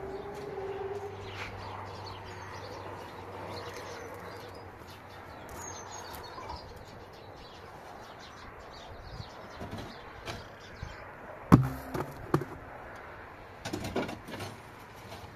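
Knocks and clatters of things being handled in a car's open boot. The loudest is a sharp knock about eleven and a half seconds in, with a few more close after it.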